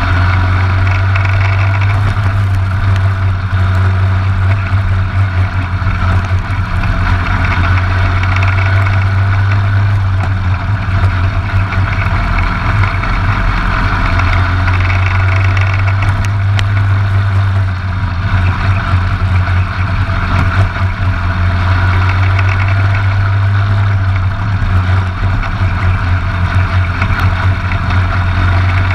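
Briggs & Stratton LO206 single-cylinder four-stroke kart engine running hard under racing load, heard up close from the kart's front fairing. The note stays steady, with slight dips now and then as the kart goes through the corners.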